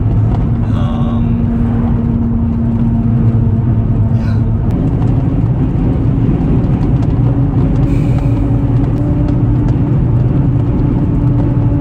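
Jeep Wrangler driving on the road, heard from inside the cabin: a steady low rumble of engine and road noise. A hum in it steps up slightly in pitch about five seconds in.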